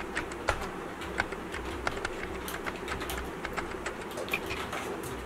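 Typing on a computer keyboard: irregular key clicks, a few each second, over a low steady hum.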